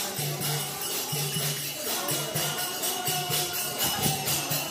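Devotional kirtan music: jingling hand percussion keeps a fast, even beat over a steady low tone, with faint chanting.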